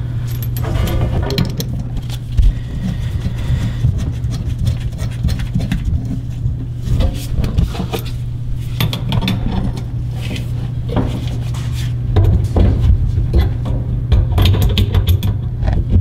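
Scattered clicks and knocks of a wrench and plumbing fittings being handled under a sink while faucet water supply lines are connected, over a steady low hum. The knocking gets busier near the end.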